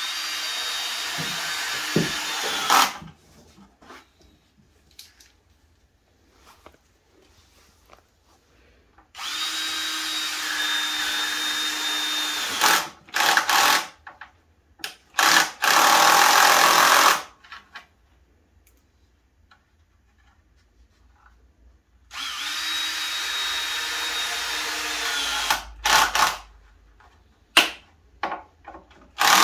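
Cordless drill-driver driving screws into wooden boards: four runs of about three seconds each with short pauses, the motor whine steady and then dropping as it winds down, one run in the middle louder and harsher.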